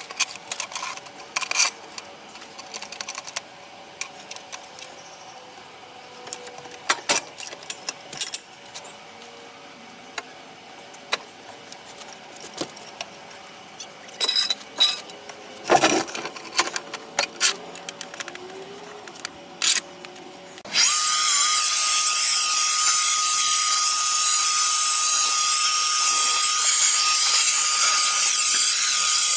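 Scattered clicks and metal knocks as a floor jack is worked to lower the car. About two-thirds of the way in, a handheld leaf blower starts suddenly and runs steadily with a loud hiss and a high whine, the loudest sound here.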